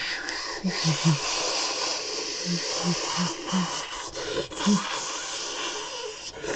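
A man imitating a rocket launch with his voice: a steady, breathy hiss, broken by a few short pauses, with brief low throaty pulses under it.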